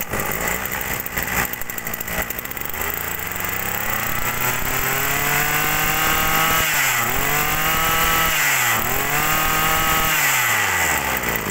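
Tanaka TBC-340S brush cutter's 34cc two-stroke engine running and being revved: the pitch climbs and holds high, dips sharply twice and climbs back each time, then falls back toward idle near the end.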